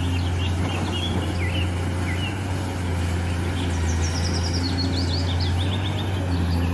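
Caterpillar 390D hydraulic excavator's diesel engine running with a steady low drone. Small birds chirp over it.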